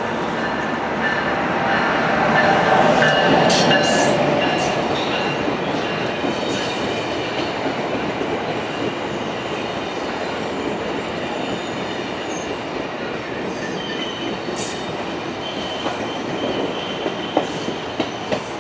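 Amtrak passenger train led by an AEM7 electric locomotive rolling into the station and past at slowing speed: a steady rumble of wheels on rail, loudest as the locomotive goes by, with scattered clicks over rail joints and thin squeals at times.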